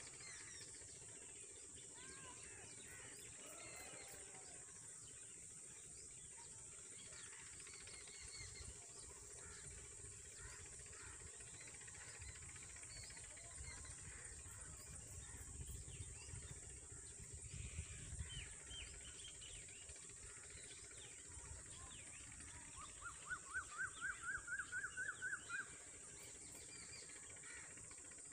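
Faint outdoor birdsong: scattered short bird chirps over a steady high hiss, then, about 23 seconds in, a run of about a dozen quick rising call notes lasting a couple of seconds.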